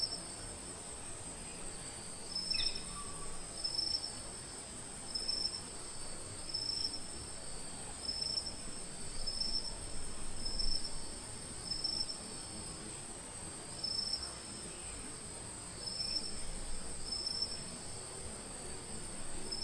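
Insects chirring in a steady, high, unbroken drone, overlaid by a second insect call that pulses about once every two-thirds of a second with a short pause partway through. A brief falling call sounds about two and a half seconds in.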